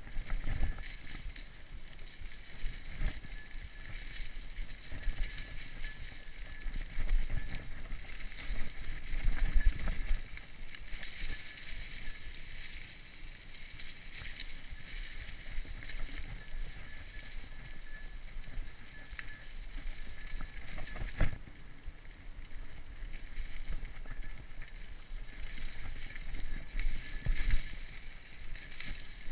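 Mountain bike being ridden on a dirt trail: steady rolling noise with irregular knocks and rattles over bumps, and one sharp knock about two-thirds of the way through.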